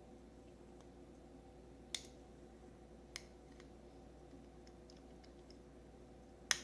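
Faint, scattered clicks of a razor knife working on a small soft-plastic microwave door latch, with three sharper clicks about two, three and six and a half seconds in, the last the loudest.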